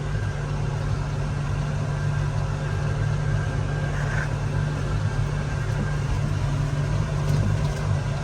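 Tractor engine running at a steady speed, a constant low drone while it pulls a corn planter.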